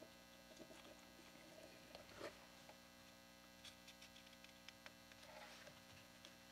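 Near silence: room tone with a faint steady hum, broken by a few faint ticks, the clearest about two seconds in.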